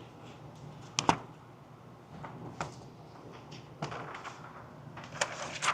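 A scattering of sharp clicks and knocks from equipment being handled at a shooting bench. The sharpest comes about a second in, and they come more often near the end.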